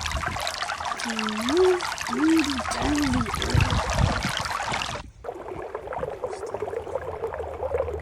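Used engine oil pouring out of a lawnmower's drain into a catch container, a steady splashing trickle. About five seconds in it suddenly drops to a fainter trickle.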